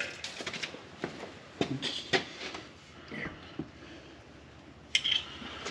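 Scattered light clinks, knocks and scrapes of hand work on an engine: tools and parts being handled, at irregular moments with quieter gaps between.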